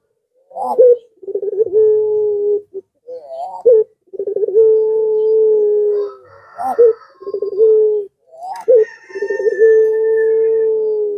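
Puter pelung ringneck dove (Barbary dove) cooing four times. Each coo is a short rising note followed by a long, steady low coo, and the last coo is held the longest.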